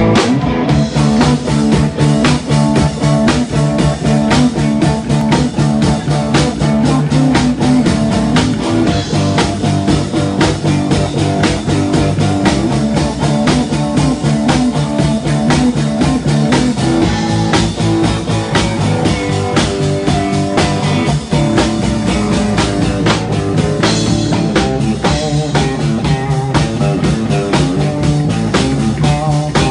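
Live blues-rock band playing loud and steady: electric guitar over electric bass and a drum kit.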